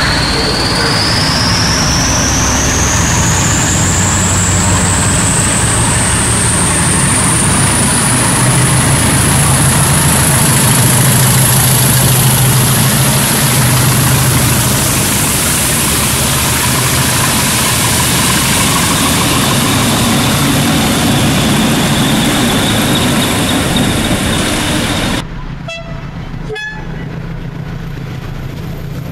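British Rail Class 20 diesel locomotive working hard. Its English Electric engine makes a deep steady beat, and the turbocharger whistle climbs in pitch over the first ten or so seconds and then holds high. About 25 s in, it cuts to a quieter, more distant engine with a few sharp clicks.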